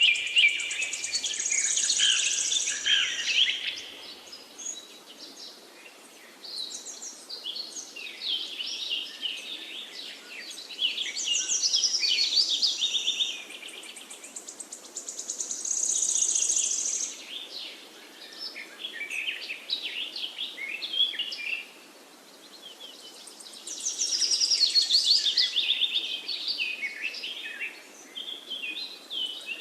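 Songbirds chirping and trilling in bursts of a few seconds, one after another, over a steady low hiss.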